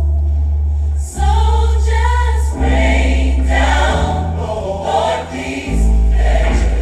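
Gospel choir singing over deep sustained bass notes that shift to a new pitch every second or two.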